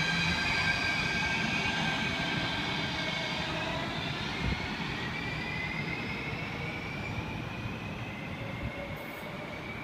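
Third-generation Athens Metro train pulling out of an underground station, its traction motors whining up in pitch as it gathers speed over a steady running rumble. The sound fades slowly as it recedes into the tunnel.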